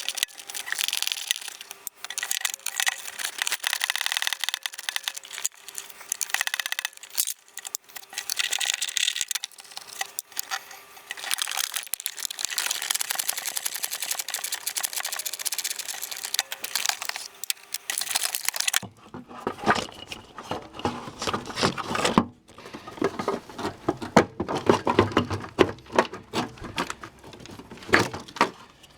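Hands-on work on the plastic blower-motor housing: a long stretch of scratchy, rasping scraping and rubbing. Then, about two-thirds of the way in, irregular knocks and clatter of parts being handled.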